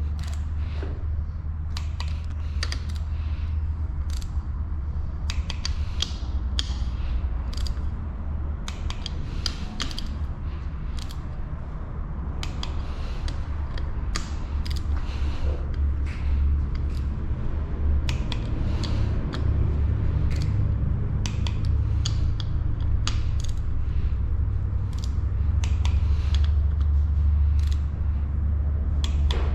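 Wrench ratcheting and clicking in short, irregular runs as the engine cover bolts are tightened to torque, over a steady low hum.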